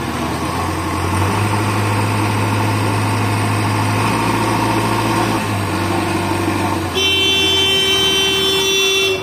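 Heavy diesel engine running, working harder for a few seconds in the middle. Near the end a vehicle horn sounds in one steady blast of about two seconds.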